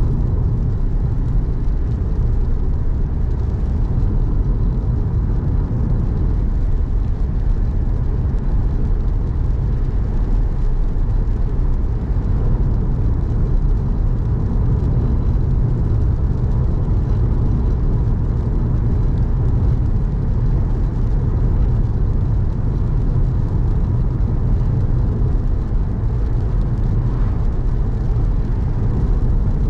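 A car driving: a steady low rumble of engine and road noise that holds even throughout, with a faint steady whine above it.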